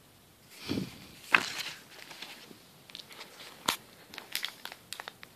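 Cardboard box and a small plastic bag of accessories being handled: intermittent rustling and crinkling with scattered light clicks and taps.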